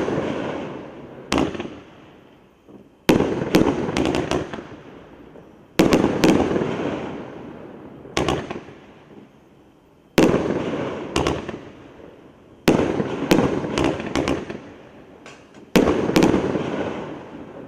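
Flashing Fireworks 'One Mad Brother' 500-gram firework cake firing aerial shells: a loud bang every two to three seconds, several followed by a few quick pops, each trailing off in a long echo.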